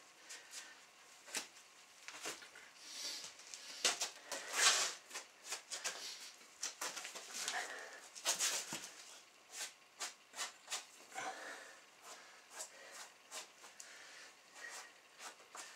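A fox pelt being pulled and peeled by hand off a hanging carcass: an irregular run of tearing, ripping noises and sharp crackles, loudest in two bursts about five and eight seconds in.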